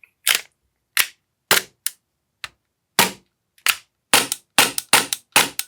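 Action Army AAP-01 gas blowback airsoft pistol firing: sharp cracks of shot and slide cycling, spaced out at first, then a quicker run of about four or five a second near the end. The gun is being test-fired on a magazine whose fill valve sticks out too far.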